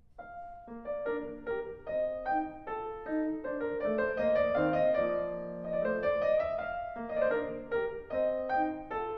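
Piano music: a melody of single notes and chords, each note ringing and fading.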